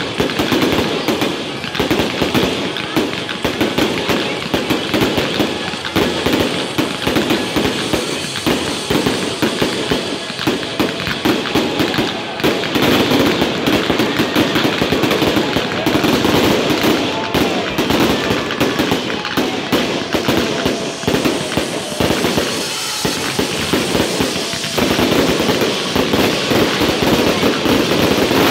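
Fireworks display: a continuous barrage of aerial shell bursts, a dense run of rapid pops and bangs with no break, growing heavier and more sustained in the last few seconds.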